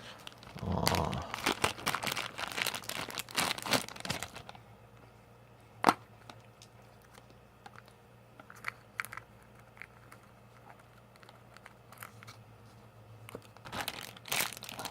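Plastic packaging crinkling and tearing as it is handled and opened by hand: a dense run of crackles for the first four seconds or so, a single sharp snap about six seconds in, then scattered small crackles and another burst near the end.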